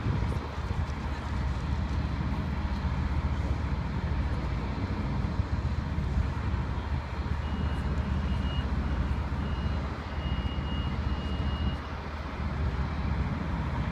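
Steady low rumble of road traffic and truck engines, mixed with wind buffeting the microphone. A faint, thin high tone comes and goes for a few seconds in the middle.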